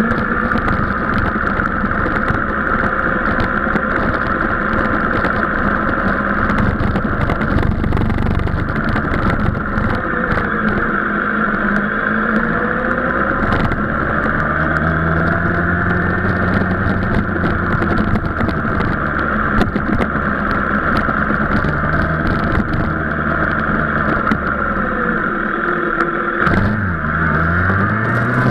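Sport motorcycle engine running at low revs as the bike rolls slowly along, heard from a camera mounted on the bike, with a steady hiss throughout. Near the end the revs drop briefly, then climb as the bike accelerates.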